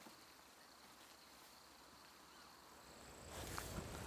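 Crickets chirring faintly in a steady, high, unbroken trill. About three seconds in, the sound grows louder, with a higher insect tone and a low rumble.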